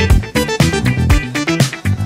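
Background music with a steady drum beat, bass and pitched instruments.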